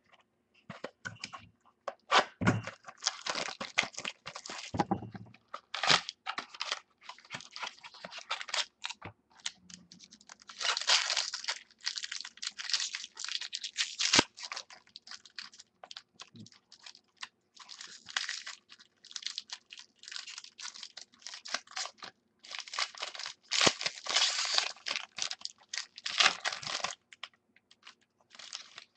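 Hands handling baseball cards, their packaging and plastic card sleeves: irregular rustling and crinkling in spells, with a few sharp clicks and taps.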